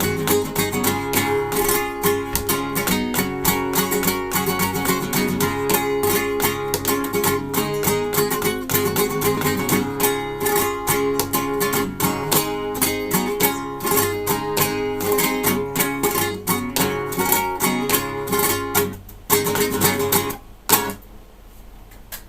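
Solo guitar playing a busy run of plucked notes, ending on a few final strokes about twenty seconds in that ring out.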